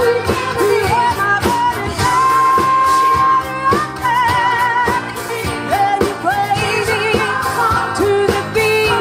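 Live band music with a singer over a steady drum beat; about two seconds in the voice holds one long note, then wavers into vibrato.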